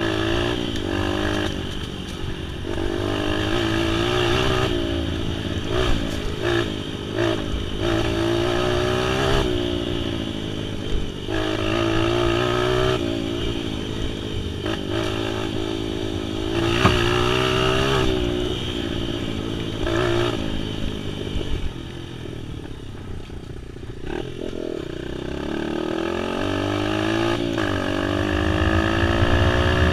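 An off-road vehicle's engine running and revving up and down with the throttle throughout, with a few sharp clattering knocks. The engine eases off after the middle, then builds again toward the end.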